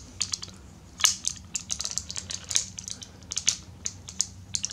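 Hard plastic parts of a Transformers Masterpiece MP-17 Prowl figure clicking and rattling as they are folded and pressed into place by hand. The clicks come in a short, irregular run, with the sharpest about a second in.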